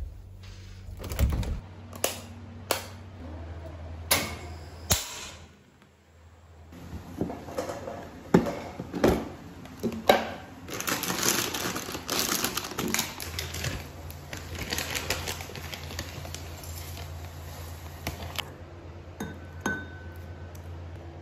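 Desk work sounds: a few separate knocks of things being handled and set down, then a long stretch of rapid clicking and rustling over a steady low hum.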